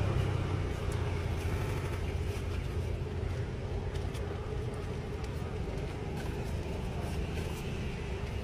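Steady low rumble of street traffic, with a few faint clicks from takeaway boxes and utensils being handled at a food cart.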